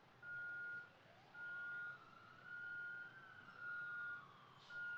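A vehicle's reversing alarm beeping steadily, about one long beep a second, with a siren wailing slowly up and then down behind it.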